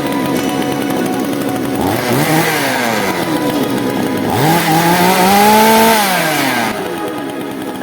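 Two-stroke gas chainsaw engine revving up and back down twice; the second rev is held longer and is the loudest.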